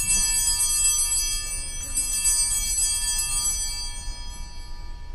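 Altar bells (Sanctus bells) shaken at the elevation of the chalice, a bright jangling ring of several small bells that fades away near the end. Their ringing marks the elevation at the consecration.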